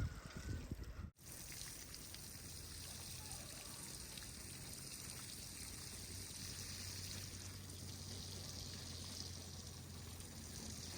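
A few low thumps in the first second, then a steady rushing of running water.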